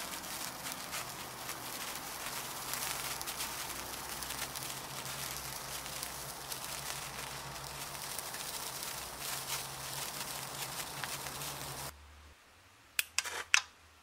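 A sparkler burning, lit by a hot resistive-wire coil: a steady fizzing hiss peppered with small crackles. The sound cuts off suddenly about two seconds before the end, leaving near silence broken by two or three sharp clicks.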